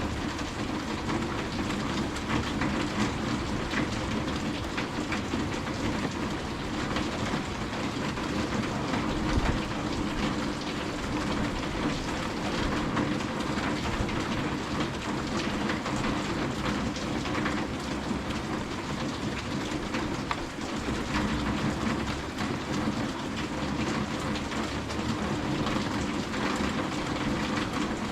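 Steady rain falling, with a dense patter of small drop ticks over an even hiss.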